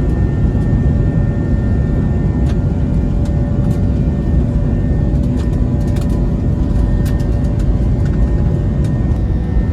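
A jet airliner's engines heard from inside the cabin as it gets ready for takeoff: a loud, steady low rumble with a thin steady whine, and a few faint rattles.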